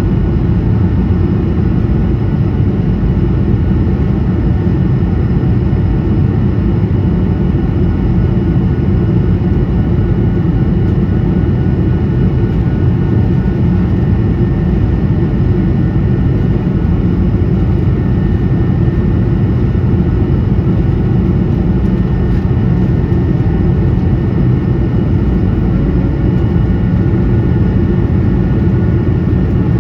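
Steady cabin noise inside an Airbus A220 in flight: an even rush of airflow and engine noise from its Pratt & Whitney PW1500G geared turbofans, strongest in the low range, with a few faint steady whine tones above it.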